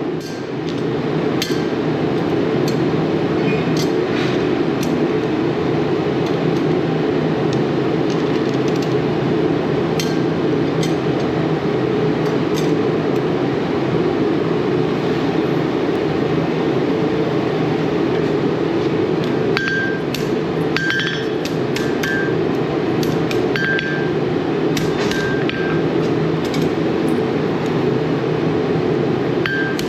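Hammer taps and metal-on-metal clinks on blacksmith's tongs, scattered and irregular, over a steady low rushing noise. From about two-thirds of the way in, several strikes ring with a short, high metallic tone.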